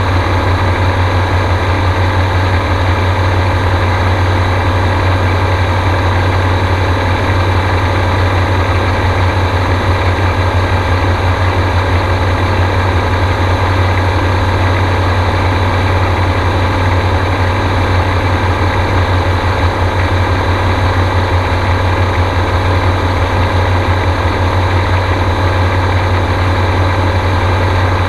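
Gyrocopter engine and propeller running at a steady pitch: a loud, even drone with a strong low hum, heard from on board.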